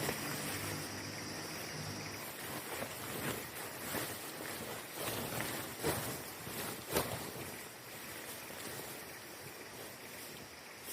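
Campfire burning with a steady rushing hiss and a handful of sharp crackling pops. A high, steady insect buzz and a low hum run underneath and stop about two seconds in.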